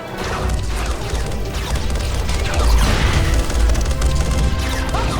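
Action-scene sound effects: crashing and clattering impacts over a heavy low rumble, with dramatic score music beneath.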